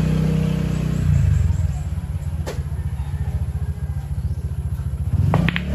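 Pool balls clicking sharply a few times near the end as the cue ball is struck and hits other balls. Under it, the steady pulsing rumble of an engine running.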